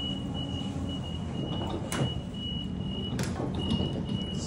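Waratah Series 2 train door warning beeping, a high tone that keeps sounding on and off, over the train's steady low hum, with two sharp knocks about two and three seconds in. The door is failing to close, held open by a beer bottle lodged beside it.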